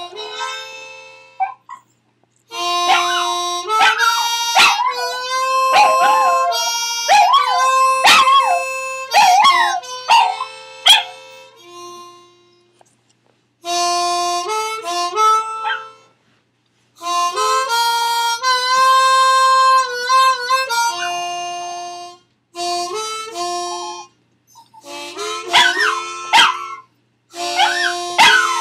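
A dog howling along to music, its voice wavering and sliding in pitch over the held notes and chords of the music. The howling comes mostly in the first half and again near the end, and the music breaks off for short pauses.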